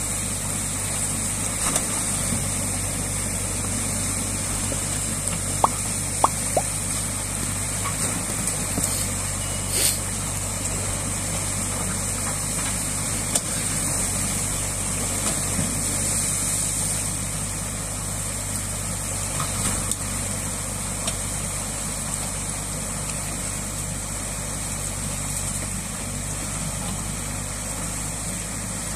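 Water gushing through a breach in a beaver dam and rushing down the stream, over the steady running of a mini crawler excavator's diesel engine. A few short clicks and knocks come about six and ten seconds in.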